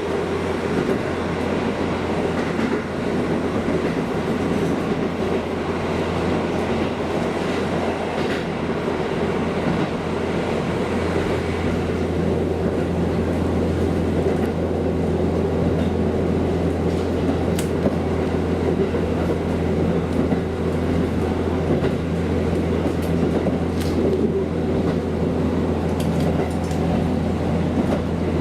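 KiHa diesel railcar running along the line: a steady engine drone with wheel and rail noise, and a few short sharp clicks in the second half.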